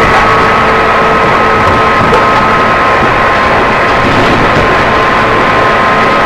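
JR East 211 series electric train running between stations, heard from on board. The whine of its external-fan-type traction motors holds several steady pitches over an even rolling noise.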